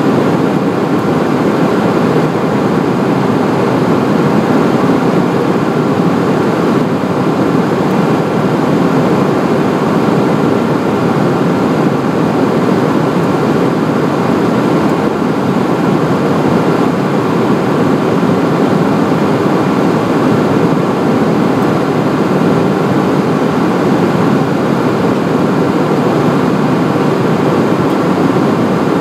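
Steady cabin noise of a Cessna Citation Encore on final approach: rushing airflow and the hum of its twin turbofan engines, with a faint steady whine.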